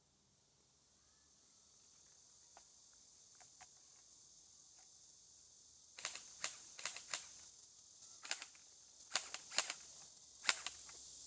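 SCAR-L electric airsoft BB gun fired in semi-auto: a string of sharp clicks in quick pairs and small clusters, starting about halfway in, over a steady high hiss.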